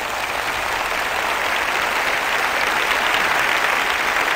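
Audience applause that swells over the first second or two and then holds steady.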